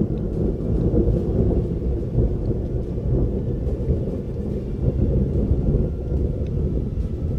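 Thunder from a lightning strike about 1.4 km away, rumbling low and unbroken.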